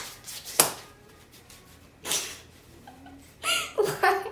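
A few sharp taps, then a girl laughing in high-pitched giggles near the end.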